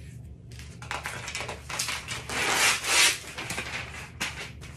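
A large sheet of paper rustling and crackling as it is handled and pulled away, loudest about two and a half to three seconds in.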